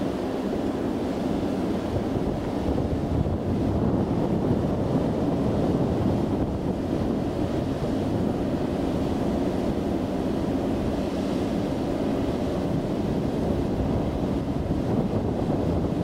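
Steady wind rumble on the microphone, with a distant electric train approaching faintly beneath it.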